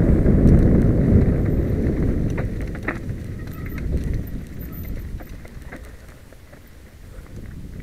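Wind rumbling over a mountain bike's camera microphone, with the tyres crunching on loose gravel and the bike rattling in quick irregular clicks. The rumble fades over the second half as the bike slows onto flat ground.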